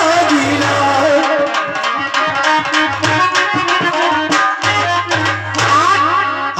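Instrumental folk accompaniment: a dholak hand drum playing quick strokes under held harmonium notes. A voice trails off in the first second.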